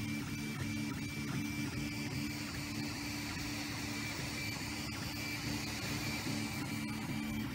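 Anet A8 3D printer's stepper motors whirring in quickly changing pitches as the print head moves back and forth laying down ABS, over a steady high tone.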